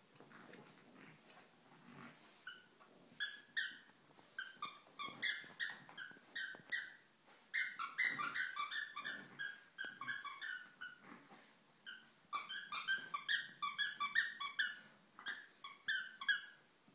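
A dog's squeaky toy squeaking over and over as a French bulldog puppy chews it, several quick squeaks a second in bunches, with short pauses between them.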